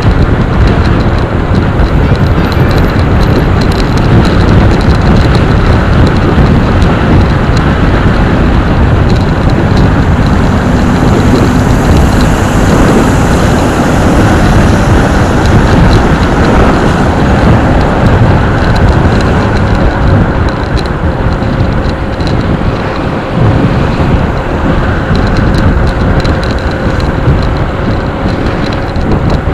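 Motorcycle running steadily at road speed, with loud, constant wind rush over the microphone.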